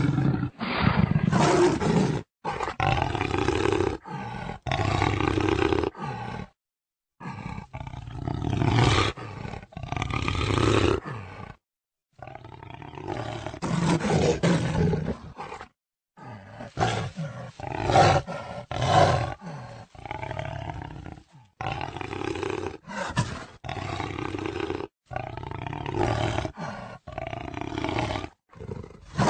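Jaguar roaring and growling: a string of calls lasting a second or two each, with sudden cuts to silence between them.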